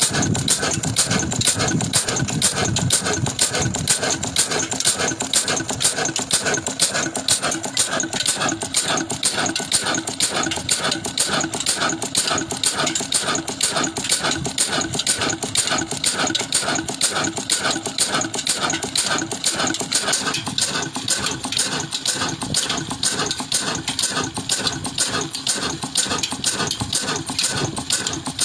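Old horizontal stationary diesel engine with a heavy flywheel running steadily, its strokes coming as an even, fast clatter.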